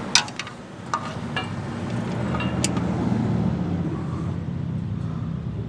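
A few sharp clicks of a ratchet and socket working the oil pan bolts of a Chevy as each is tightened a few degrees past snug. Under them is a steady low rumble of a motor vehicle, which grows louder about a second in.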